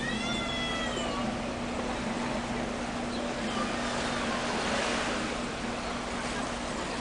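A drawn-out animal call that rises briefly and falls away right at the start, over a steady low hum and a constant rush of background noise.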